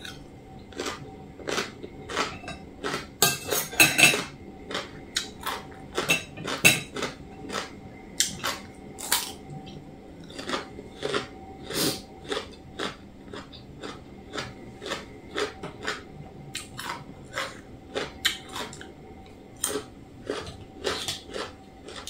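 A meal of som tam (green papaya salad) being eaten: a spoon and fork clink and scrape on a plate again and again at an uneven pace, with chewing between mouthfuls.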